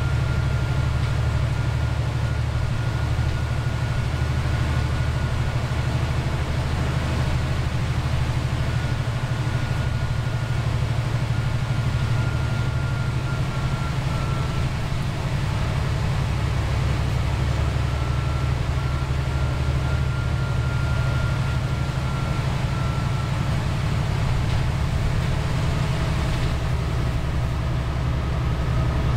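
Cummins ISL9 diesel engine and drivetrain of a New Flyer Xcelsior XD40 transit bus, heard from the rear of the passenger cabin while the bus is under way: a steady low drone with a faint high whine that comes and goes.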